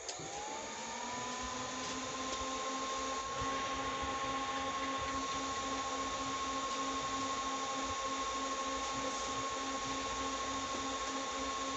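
Sound Standard CA20 power amplifier switched on with a click, its cooling fan whirring up to speed over about a second, then running steadily with a constant whine.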